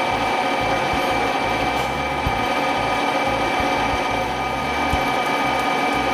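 Vertical milling machine running a face mill through an aluminium block: a steady cutting whine with several held tones over the chatter of the cut.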